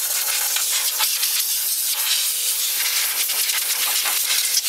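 Compressed-air blow gun giving a steady hiss as it blasts old dust out of a vintage electric fan heater's heating element.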